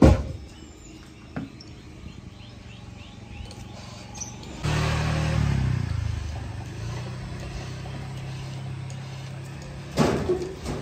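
Heavy wooden logs thudding as they are dropped onto a pickup truck's loaded bed, once at the start and again near the end. In between, an engine starts up suddenly about four and a half seconds in and keeps running steadily at a low hum.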